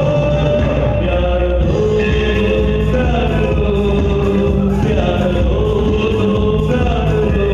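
A live band plays a song while a male singer holds long sung notes over the full accompaniment.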